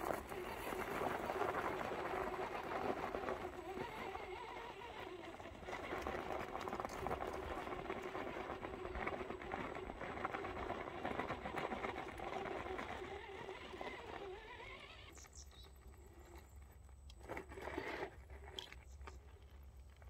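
Axial Wraith RC rock racer's electric motor and drivetrain whining as it crawls, with its tyres crunching over loose dirt and stones; the whine rises in pitch about fourteen seconds in, then drops away. Near the end, quieter, a few sharp knocks as the tyres grip and scrabble on rock.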